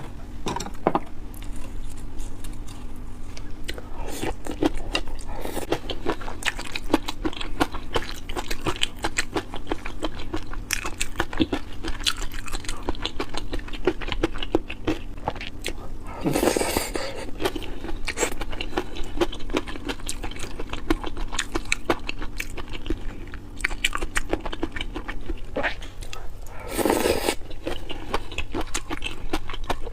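Close-miked biting and chewing of crunchy soy-marinated raw shrimp, with a dense run of fast, irregular crunches and clicks. Twice, once about halfway and once near the end, there is a louder noisy sound lasting about half a second.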